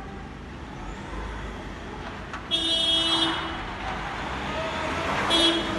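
A vehicle horn sounding in two long, steady blasts, each about a second, the second near the end, over the steady hum of the street.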